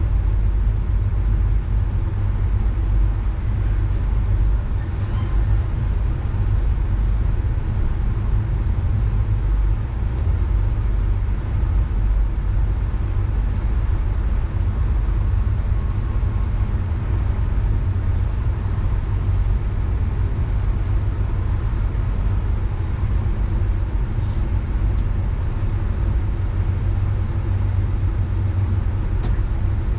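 Steady low rumble of a passenger train rolling along the track, heard from inside the car, with a few faint clicks.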